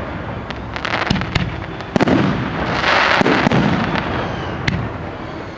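Fireworks display: aerial shells going off in a run of sharp bangs and pops, with a denser rush of noise about three seconds in.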